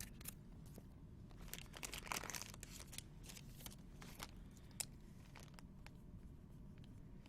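Trading-card packs being opened and handled: wrapper crinkling and tearing with short clicks of cards, busiest about two seconds in and sparser later.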